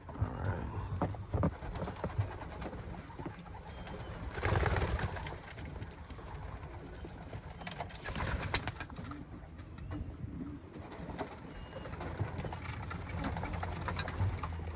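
Domestic pigeons cooing in a loft, with scattered knocks and clicks, a louder rustling burst about four seconds in, and a couple of sharp clicks about eight seconds in.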